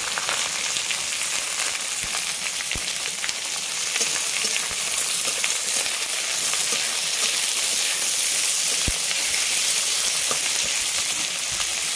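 Sliced onions frying in hot oil in a kadai: a steady sizzle, with a few light clicks of stirring.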